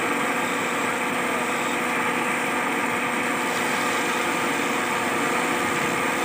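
Belt-driven wood lathe running at a steady speed, its motor humming, while a hand chisel cuts into the spinning wooden cot leg.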